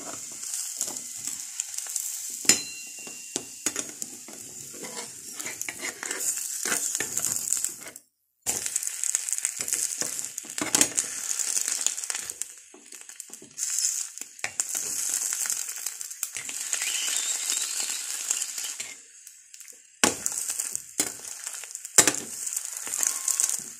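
An egg frying in butter in a small non-stick pan, sizzling steadily, with a slotted spatula scraping and tapping against the pan now and then. The sizzle cuts out completely for a moment about eight seconds in.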